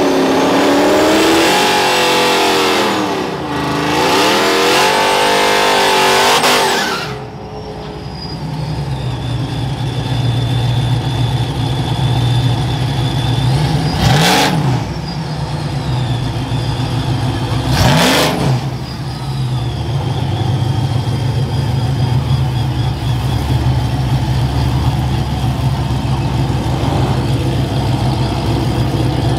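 5.7 Hemi V8 of a modified Ram 1500 R/T pickup revving hard up and down for several seconds, then running steadily at idle and light throttle with a low rumble and a faint high whine. Two sudden loud swells, about four seconds apart, cut across the idle near the middle.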